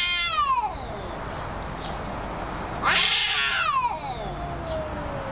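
Domestic cat yowling at another cat in a face-off, with long, drawn-out caterwauls that are the threat call of a standoff. One yowl falls away in the first second, then a louder one about three seconds in slides slowly down in pitch for about two seconds.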